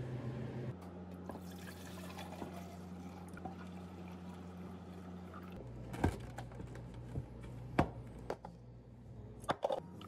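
Cold drinks being poured and handled behind a cafe counter: liquid pouring into cups, with a few sharp knocks of a plastic pitcher and cups against the counter, over a steady low hum.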